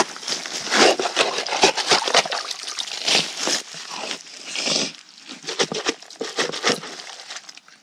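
Shovel blade scraping and chopping into wet, muddy soil at a spring seep, in an irregular run of strokes that thin out in the second half.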